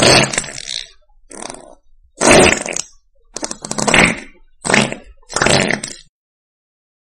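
A run of six short fart sound effects with short gaps between them, each lasting under a second; they stop about six seconds in.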